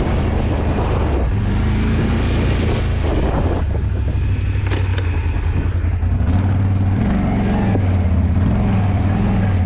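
ATV engine running steadily in four-wheel drive through a muddy, waterlogged field, its pitch stepping up about six seconds in.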